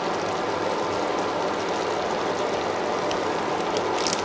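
Cream sauce with turkey simmering in a pan: a steady, fine bubbling crackle. A brief crinkle of the foil cheese wrapper near the end.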